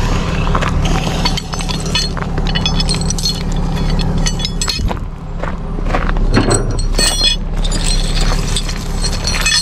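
Tow chain and metal hooks clinking and rattling as they are unhooked from a towed van, over a vehicle engine idling steadily.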